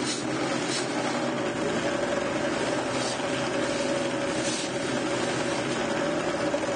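A sanding mop running with a steady hum while the rough edges of a cedar board are pressed against it, its abrasive threads hissing on the wood.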